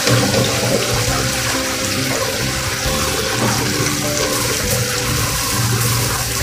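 Cornflour-coated chicken pieces deep-frying in an electric deep fryer: the hot oil bubbles and hisses vigorously and steadily.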